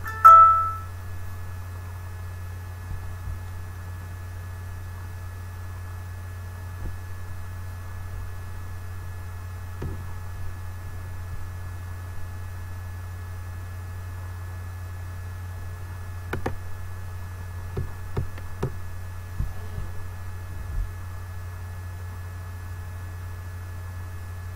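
A short electronic beep right at the start, fading within about half a second, over a steady low hum. A few faint clicks come in the second half.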